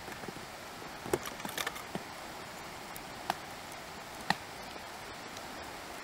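Steady rushing of a fast-flowing river in the background, with a few light clicks and taps as a beetroot is peeled and handled over a table with a knife and grater.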